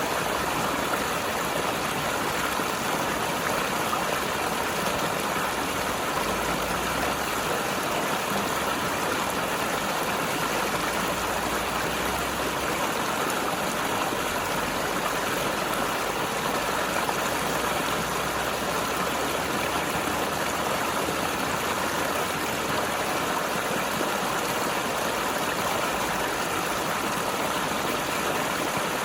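Mountain river flowing and gurgling over rocks: a steady, even rush of water that does not let up.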